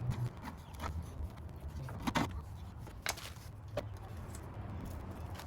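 A few sharp clicks and knocks of parts being handled, the loudest cluster about two seconds in, over a steady low rumble.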